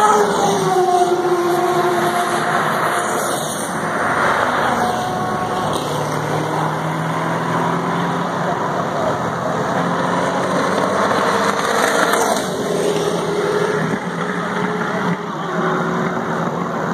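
Vintage Indy car engines running hard as the cars climb the hill one after another, the pitch dropping as each car passes.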